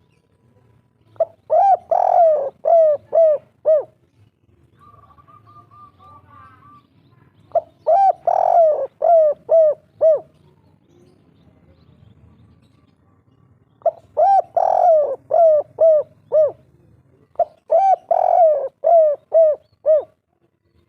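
Spotted dove (tekukur) of the 'kuk 3' song type cooing: four loud phrases of six or seven quick coos each, every coo an arching note that falls slightly in pitch through the phrase.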